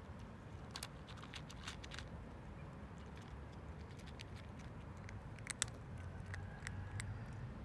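Cat crunching dry kibble: irregular small, crisp clicks, in two clusters, about a second in and again near the end.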